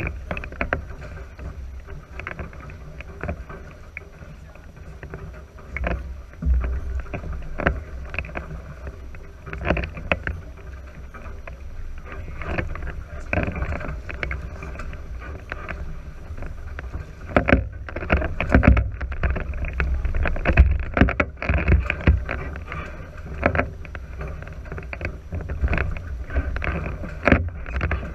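Water slapping and splashing against the hulls of a NACRA 5.0 catamaran under sail, in irregular splashes that come thickest in the middle, over a steady rumble of wind on the microphone.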